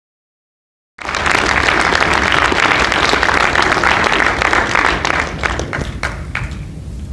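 Audience applauding, starting abruptly about a second in and thinning to a few scattered claps near the end.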